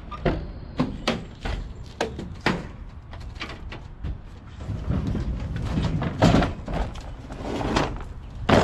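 Ford E-350 cargo van's rear door unlatched with a few sharp clicks and swung open. Then a Yard Machines push mower is dragged out of the van with rumbling and clattering, and it lands on the pavement with a loud knock near the end.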